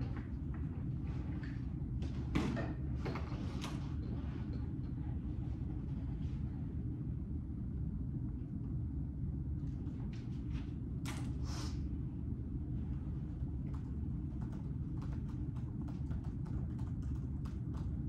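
Room tone: a steady low hum with scattered small clicks and rustles, and a cluster of louder ones about two and a half to four seconds in and again around eleven seconds.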